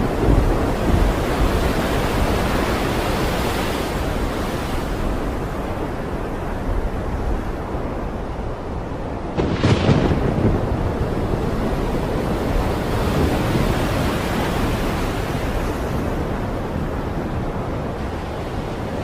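Stormy sea and wind: a steady roar of surf and wind with slow swells, and a sudden louder crash about halfway through.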